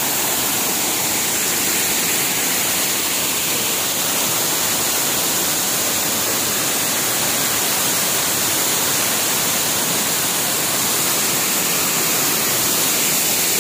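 A waterfall cascading down rocky tiers into a stream: a steady, loud rush of water with no change.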